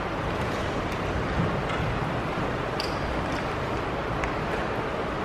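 Steady room noise with faint shuffling and a few small knocks as a congregation stands up from its chairs.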